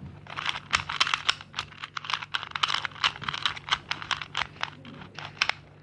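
Plastic 2x2 speed cube being turned quickly by hand: a rapid run of clicks and clacks as its layers snap round, several a second, stopping shortly before the end.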